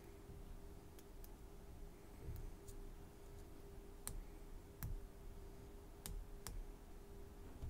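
Pin-tumbler padlock (American A701D) being picked with a hook pick and tension wrench: about eight small, sharp, irregularly spaced metallic clicks as the pick works the pins, over a faint steady hum.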